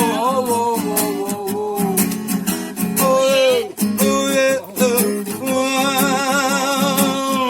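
Acoustic guitar strumming under a voice singing a wordless melody with held, wavering notes between sung verses.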